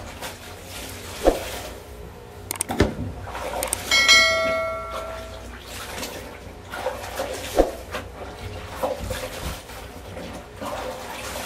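Clothes being hand-scrubbed and wrung in a basin of water, with scattered splashes and a few sharp knocks. About four seconds in, a bell-chime sound effect for the subscribe-button animation rings out and fades over about a second and a half.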